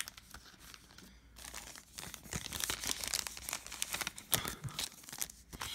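Foil trading-card pack wrapper crinkling and being torn open by hand, with cards being handled, in a rapid run of irregular crackles that gets busier about two seconds in.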